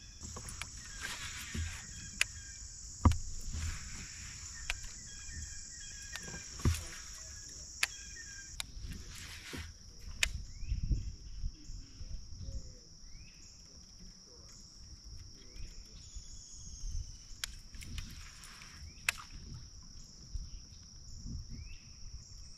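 Steady high-pitched drone of an insect chorus, with scattered sharp knocks and clicks over a low rumble of water and handling noise.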